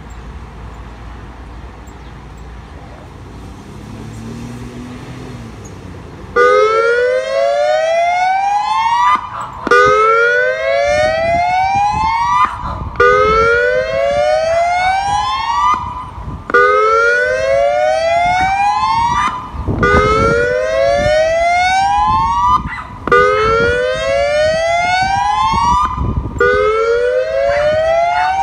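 Federal Signal Modulator 6024 electronic siren sounding its whoop tone, the hazardous-materials warning signal. After about six seconds of low background it starts a loud series of rising whoops, each climbing for about three seconds, cutting off and starting again from the bottom.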